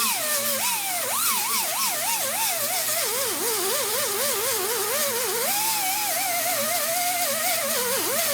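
Small high-speed power grinder working weld metal. Its whine wavers up and down a few times a second as it is pressed into the metal and eased off, over a haze of grinding hiss, and it stops just at the end.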